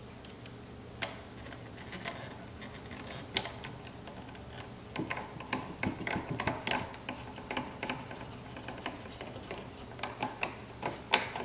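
Hand screwdriver driving small self-tapping screws into a plastic mirror housing, with screws and tool clicking against the plastic. A few separate ticks, then a quick run of clicking about five seconds in, and more near the end.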